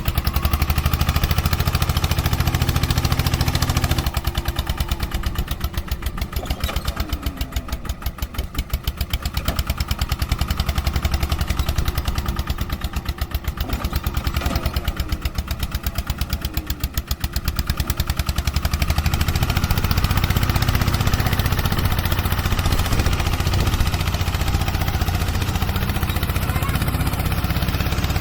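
A small engine running with a fast, even chug. It eases off between about 4 and 18 seconds in, then picks up again.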